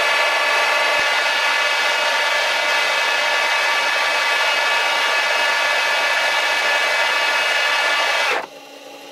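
Metal lathe taking a turning pass on an aluminium-alloy bar with a carbide insert, at 1250 rpm, 0.05 feed and 0.5 mm depth of cut: a loud, steady cutting whine made of many tones. It stops suddenly about eight seconds in as the cut ends, leaving the quieter sound of the spindle running.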